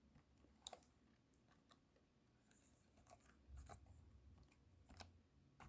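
Near silence, broken by about half a dozen faint, irregularly spaced clicks from working a computer's keyboard or mouse.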